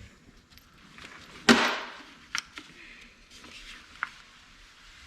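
Hand tools working on a stripped-down engine: one loud clank about a second and a half in, then a few lighter clicks.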